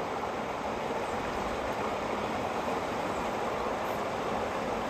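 Steady rushing of flowing creek water, an even hiss without breaks.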